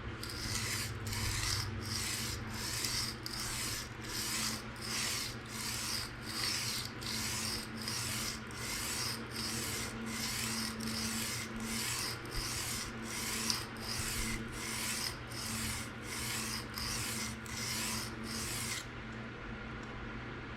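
Knife blade of PM60 steel stroked freehand across a 220 grit diamond sharpening stone, a steady run of scraping passes at about one and a half a second that stop near the end. The coarse stone is grinding the bevel down toward a burr.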